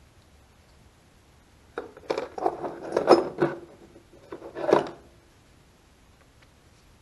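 A quick run of small metallic clicks and knocks, about three seconds long, from a carburetor part and a screwdriver being handled.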